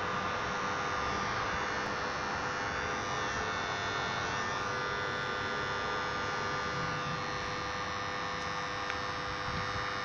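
The two-winding ballast choke of a 400 W high-pressure sodium light fixture hums loudly and steadily while the lamp stays dark. The owner puts this down to a short circuit in the lamp socket, which leaves the choke running into a dead short.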